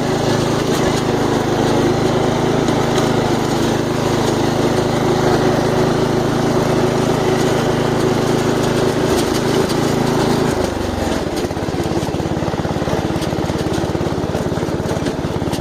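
Off-road riding lawn mower engine running steadily at speed. About ten seconds in, the revs drop and it settles into a lower, pulsing idle.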